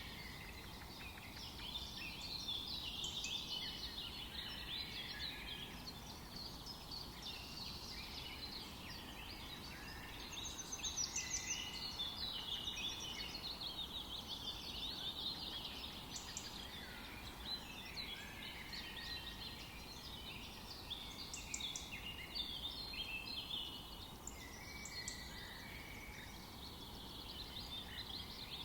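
Many small birds chirping and trilling at once, short calls overlapping without pause and swelling in busier spells, over a steady low background hiss.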